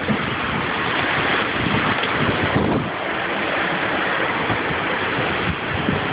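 Strong storm wind rushing steadily, with gusts buffeting the phone's microphone in a low rumble.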